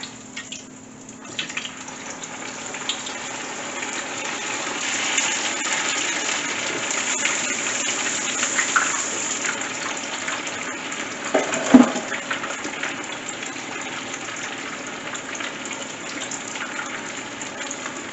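Battered porgy deep-frying in a skillet of hot oil: a loud, steady sizzle that builds over the first few seconds after the fish goes in. A single sharp knock comes about two-thirds of the way through.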